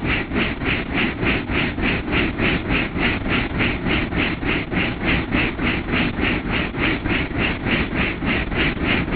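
Light helicopter in flight heard from inside the cabin: steady engine and rotor noise with a rhythmic pulsing about three to four times a second.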